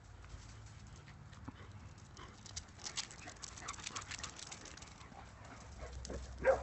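Dogs' paws patter and claws click on concrete as they run, in a quick run of short taps. A single short bark comes near the end.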